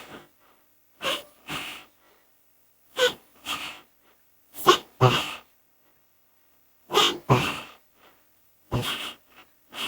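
A person sneezing over and over, five sneezes about two seconds apart, each a short 'ah' followed half a second later by a noisy 'choo'.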